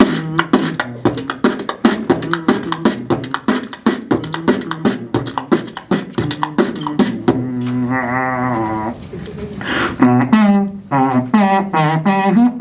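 Beatboxing into a corded handheld microphone: a fast stream of mouth-made kick, snare and click sounds. About seven and a half seconds in, a held, wavering vocal tone lasts about a second and a half before the beat picks up again.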